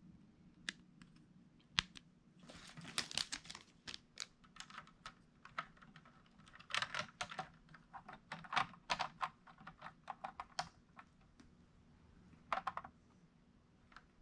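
Plastic LEGO pieces clicking and clacking as the jointed bandolier strap of bricks is handled and fitted onto the LEGO Chewbacca model, in irregular clusters of quick clicks.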